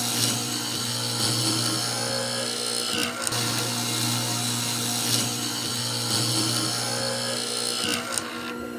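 Hollow-chisel mortiser running steadily with a constant motor hum as its square chisel and auger bore down into a softwood 2x4 post, cutting a mortise. The cutting briefly dips about three seconds in and falls away near the end.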